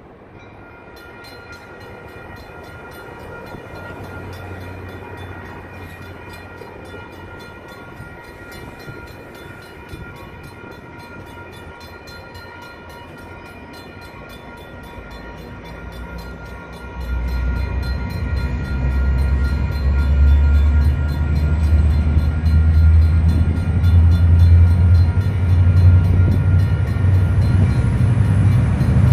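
Railroad crossing warning bells, electronic e-bells and a mechanical bell, start ringing rapidly and steadily about a second in as the crossing signals activate. About halfway through, the low rumble of an approaching MP36 diesel locomotive grows loud beneath the bells.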